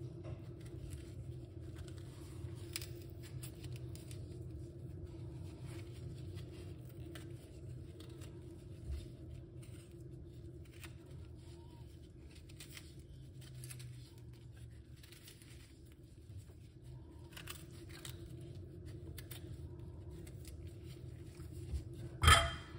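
Metal spoon scraping the skin off fresh ginger root: faint, irregular scratching strokes. Near the end comes one sharp knock, the spoon against the stainless steel bowl.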